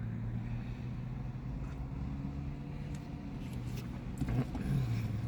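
A car idling: a steady low engine hum.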